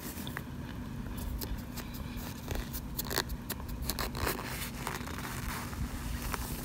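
A spoon scraping through and breaking a pan of oven-baked cornstarch, the dry chunks and crust crunching and crackling in irregular sharp clicks, thickest around the middle.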